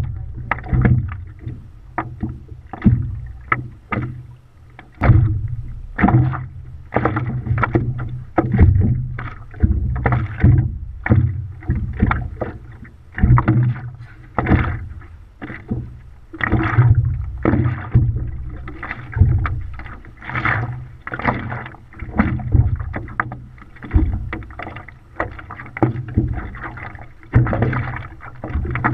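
Water slapping and splashing against a GoPro in its waterproof housing, mounted at the waterline of a moving stand-up paddleboard: uneven splashes, one or two a second, each with a low thud.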